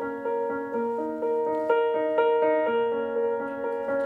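Piano playing a gentle, steady run of repeating notes in the accompaniment of a slow ballad, with no voice over it.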